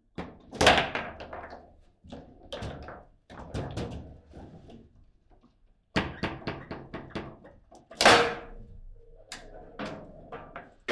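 Foosball table in play: sharp, irregular clacks and knocks of plastic figures striking the ball and rods banging against the table, in quick runs separated by short pauses. The loudest knocks come about a second in and about eight seconds in.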